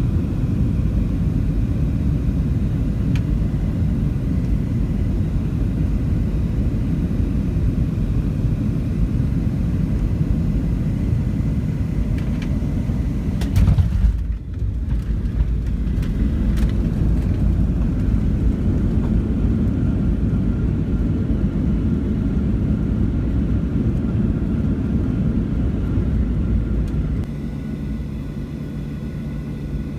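Steady low rumble of a vehicle travelling, heard from inside it, with a brief break about halfway through and a steady hum joining near the end.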